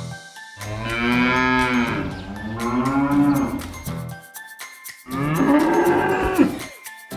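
Cow mooing: long, drawn-out moos one after another, with a short gap between them.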